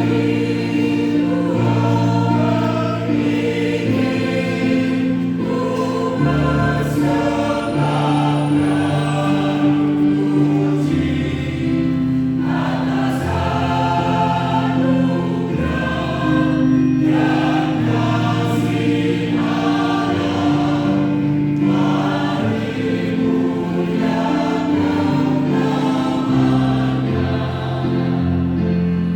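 Mixed church choir singing an anthem with piano accompaniment, several voice parts holding sustained chords.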